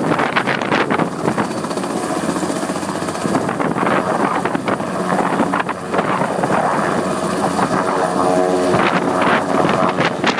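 Coast Guard helicopter running close by, its rotor and turbine engine making a loud, steady noise.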